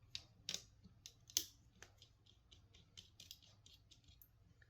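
Faint clicks and ticks of a small screwdriver and tweezers working the screws out of a Logitech Performance MX mouse's internal frame: a few sharper taps in the first second and a half, then a run of quicker, fainter ticks.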